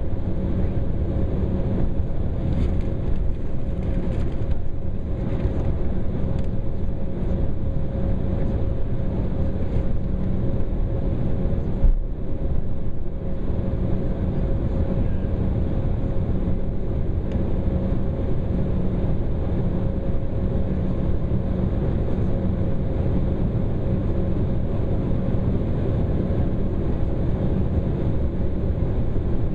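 Cabin noise of an Embraer E195 airliner taxiing, heard from a seat over the wing: its General Electric CF34-10E turbofans at low taxi power with the cabin air system, a steady rumble carrying a steady hum. A brief knock about twelve seconds in.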